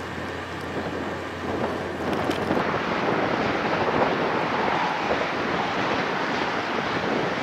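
Wind noise with a low steady hum. About two and a half seconds in, this gives way to a louder, steady rush of heavy storm surf breaking on a beach.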